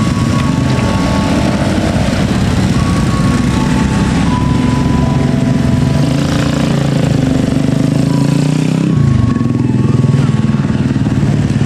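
Engines of many small motorcycles and scooters running together as a dense stream of them rides slowly past, a steady mingled drone.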